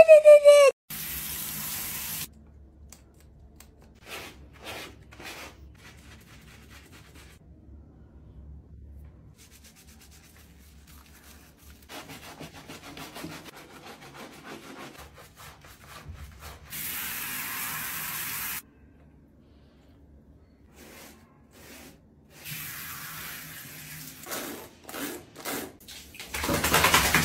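A soapy dog being washed: short bursts of shower spray, with a brush scrubbing through the wet lathered coat between them.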